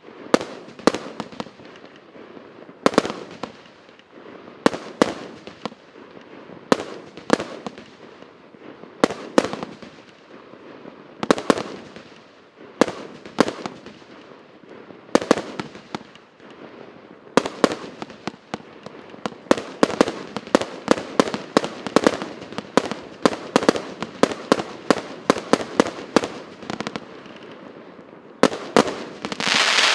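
TC772 firework battery firing shot after shot. At first the sharp bangs come about one every second or two. In the second half they speed up into a rapid volley, and near the end there is a crackling hiss.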